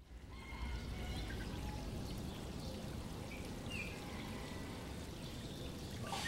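Steady rushing of running water that fades in at the start, with a few faint short chirps over it.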